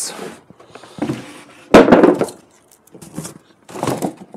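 Stiff corrugated cardboard being pulled apart and lifted away, scraping and crackling in short bursts, the loudest about two seconds in and another near the end.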